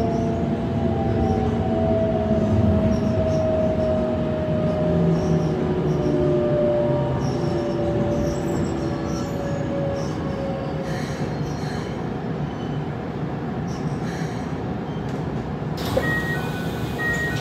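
Onboard running sound of a Keikyu 600 series car with Mitsubishi GTO-VVVF traction inverters braking into a station. The inverter's tones fall slowly in pitch over rail and wheel noise as the train slows. The rolling noise then eases, and a sudden hiss with a click comes near the end as the train stands.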